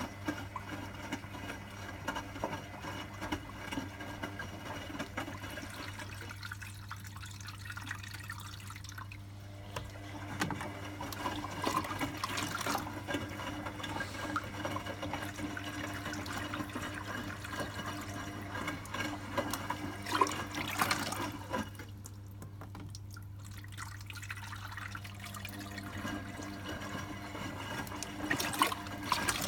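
Zanussi ZWC 1301 washing machine taking in water for a further rinse: water running into the drum over a steady low hum, the rush thinning out twice.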